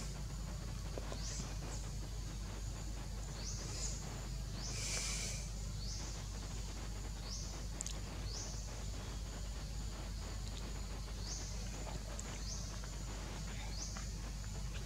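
Outdoor forest ambience: a steady low rumble under a short, high, rising call repeated about once a second. There is a brief hissy burst about five seconds in.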